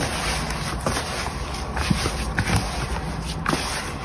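Gloved hands kneading bread dough in a metal bowl: soft irregular pats and squishes of the dough, with scattered light knocks against the bowl.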